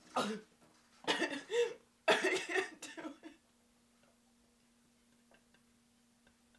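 A woman coughing hard over a steel sink, in three short bouts within the first three seconds, then only a faint steady hum.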